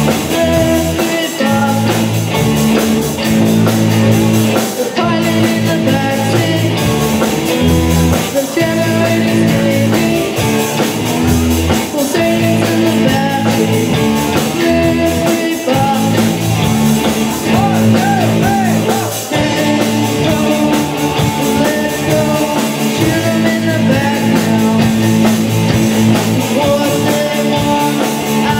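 Punk rock song played by a band with guitars, drum kit and singing.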